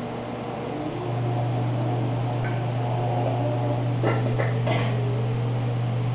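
Steady low electrical hum of an aquarium pump, with a few short crackles about four to five seconds in.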